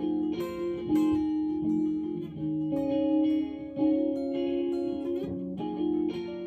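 Background music: a guitar picking ringing chords, with a fresh chord struck every second or two.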